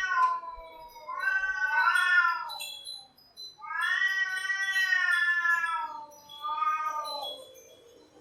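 Cats yowling: a run of long, wavering, drawn-out calls, two voices overlapping about two seconds in, and the longest call lasting about two seconds in the middle.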